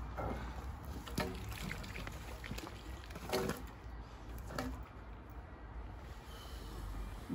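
Water splashing and trickling off a scaffold pole as it is hauled out of a canal onto the bank, with a few sharp knocks and scrapes of the metal pole about one, three and a half, and four and a half seconds in.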